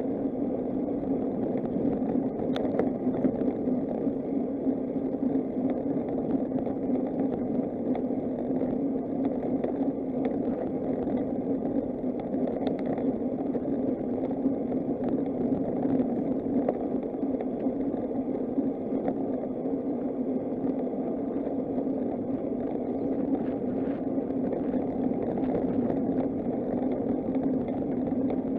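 Steady riding noise from a moving bicycle: wind rushing over the microphone together with tyre and road rumble, with a faint click about two and a half seconds in.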